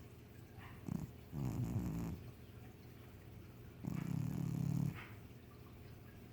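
Sleeping cat snoring: two low, rattly snores, each about a second long and a couple of seconds apart.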